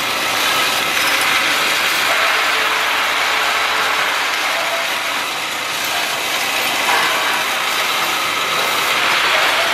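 Automatic faucet-part assembly machine running: a steady, dense mechanical rattle and clatter of small plastic parts moving along its feeder tracks.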